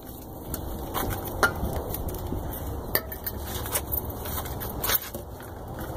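Irregular scraping and light metallic clicks, about one a second, as gunk is scraped off a metal engine part by hand, over a steady low rumble.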